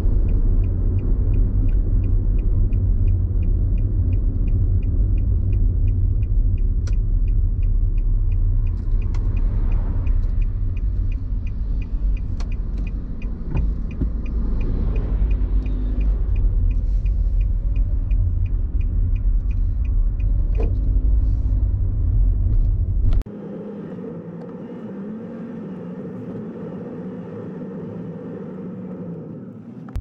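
A car driving, with a steady low rumble and a faint, evenly repeating tick above it. About 23 seconds in the rumble cuts off suddenly, leaving a quieter hum.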